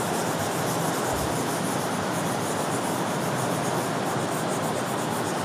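Marker pen rubbing across a whiteboard as words are written, a soft scratchy sound over a steady hiss.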